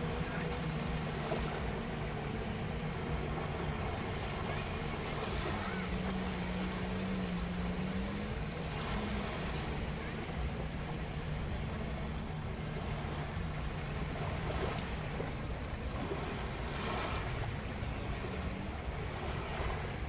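Small waves washing onto a sandy beach, the wash surging every few seconds, with a steady low engine drone running underneath.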